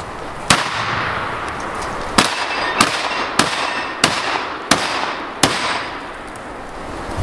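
Seven shots from a semi-automatic 12-gauge shotgun, each with a short echo. A lone shot comes first, then after a pause of over a second six more follow at a steady pace about two-thirds of a second apart.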